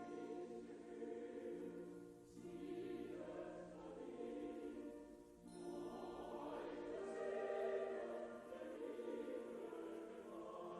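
Music: a choir singing slow, sustained chords in phrases of a few seconds.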